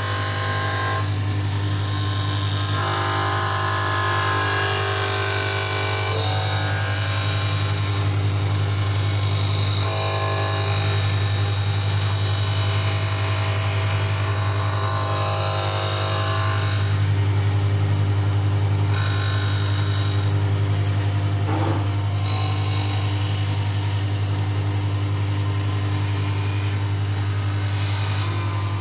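Supore LE-520 automatic lens edger grinding the edge of a spectacle lens: a steady motor hum under a higher grinding whine whose tone shifts every few seconds.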